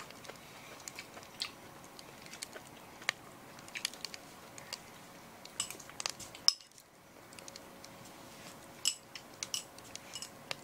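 Scattered light clinks of a metal ladle and utensils against a ceramic bowl and a cast-iron pan, a dozen or so short strikes spread through.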